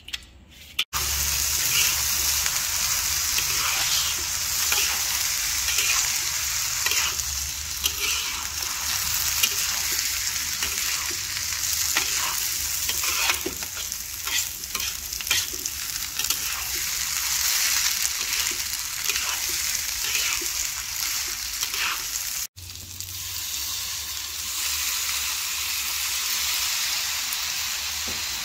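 Raw rice sizzling in hot garlic oil in a carbon-steel wok, tipped in about a second in with a sudden burst of sizzle, then stirred and scraped with a steel spatula, giving a steady hiss with frequent scraping clicks. The sound cuts out briefly about 22 seconds in.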